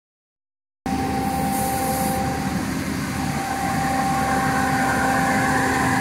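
Diesel engine of a Sany STC500 truck crane idling steadily: a constant hum with a couple of held tones, cutting in about a second in. A brief faint hiss comes near two seconds in.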